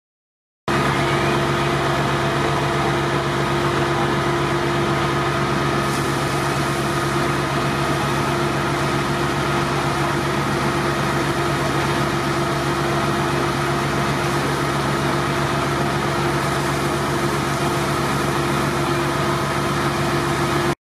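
An engine running steadily at one constant speed, a drone with several unchanging tones in it. It cuts in suddenly just under a second in.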